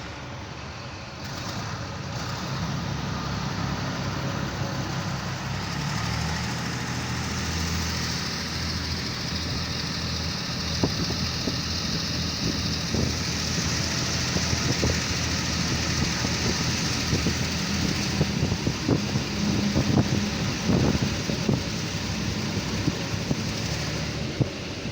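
Narrow-gauge ADe diesel railcar running, heard from an open drop-down window: a steady low engine drone that steps up about six seconds in, with air rushing past and wheels knocking and clattering on the track, most thickly near the end.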